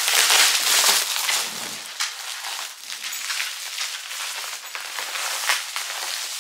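Crinkling and rustling of a foil bubble-insulation mailer being unwrapped from around a corrugated cardboard tube. It is loudest for the first second and a half, then goes on as softer rustling with a few light clicks.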